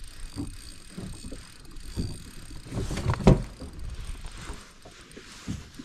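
Spinning reel being cranked to bring in hooked horse mackerel on a sabiki rig, with irregular handling knocks and one sharp knock about three seconds in.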